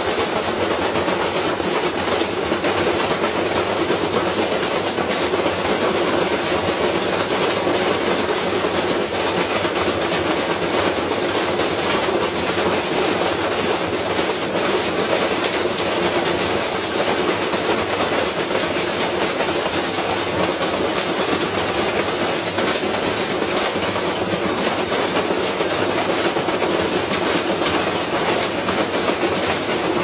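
Front-loading washing machine on its spin cycle with a heavy weight in the drum: the badly unbalanced load shakes the whole machine into a loud, steady, rapid clatter and banging as it tears itself apart.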